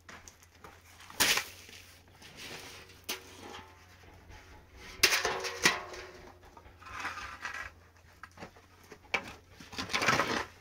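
Scattered knocks and clatter as a metal basin is set down on a dirt floor and wooden planks are handled. The loudest knock comes about five seconds in, with a brief metallic ring after it.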